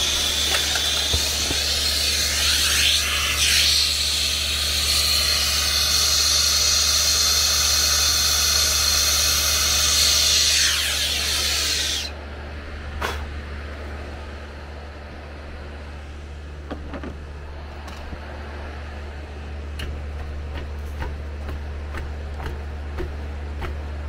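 Hand-held brazing torch flame hissing loudly against the copper refrigerant line joints as they are heated to unbraze them. The hiss stops abruptly about twelve seconds in, leaving a few light clicks and taps over a steady low hum.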